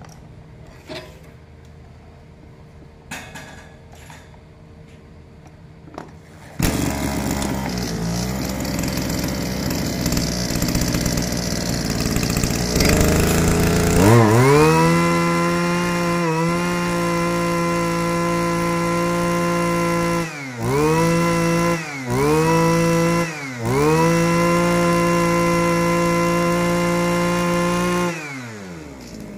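Echo Kioritz backpack brush cutter's two-stroke engine starting about six seconds in after a few faint clicks, running unevenly at low speed, then revved up to high speed. It is held there with two brief drops in revs before falling back to idle near the end.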